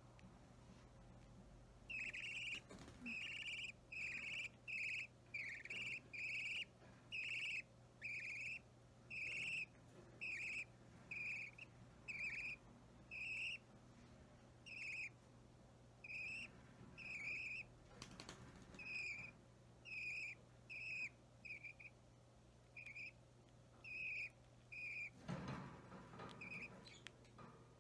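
Budgerigar chick about three weeks old giving short, rasping begging calls, about two a second, as it is hand-fed. A brief rustle of handling comes near the end.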